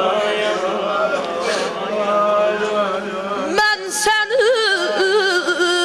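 A group of men chanting a Shia mourning lament (noha) together. About three and a half seconds in, a single young male voice takes over through a microphone, singing the lament with a wavering, ornamented pitch.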